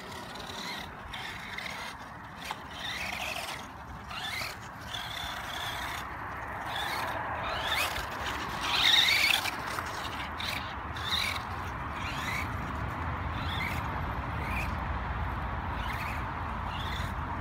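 Radio-controlled off-road truck driving over a turf track, its motor whining up and down in pitch in short bursts as it speeds up and slows. Loudest about nine seconds in, when it runs close by.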